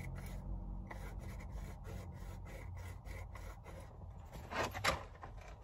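Hands rubbing and picking at small dry material, a soft rubbing rustle with a run of faint ticks, and two louder rustles about four and a half and five seconds in.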